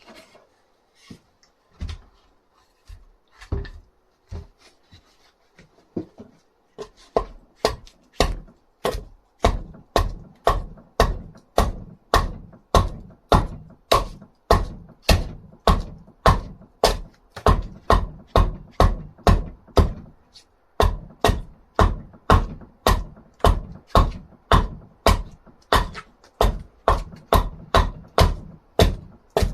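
Repeated sharp strikes of a tool on dried wood being shaped into an axe handle. A few scattered knocks at first, then a steady run of about two blows a second from about seven seconds in, with a short break near the end.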